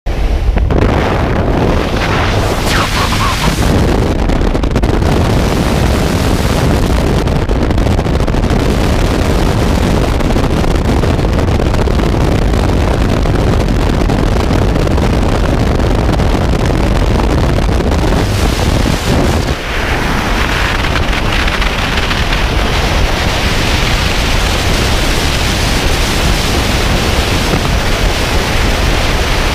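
Steady wind noise on a helmet camera's microphone at the open door of a jump plane, mixed with the aircraft's engine noise. A little past the middle it dips briefly, then turns into a brighter, hissier rush of freefall wind.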